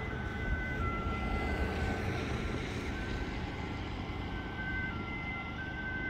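Faint warning siren sounding for a test alarm: a steady high tone with a second tone stepping back and forth between two pitches, over a low outdoor rumble.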